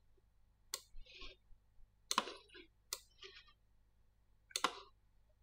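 Computer mouse clicking: four sharp clicks spread out a second or so apart, each followed by a fainter click.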